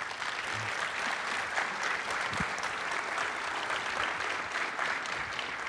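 Audience applauding: a steady patter of many hands clapping that begins to thin out near the end.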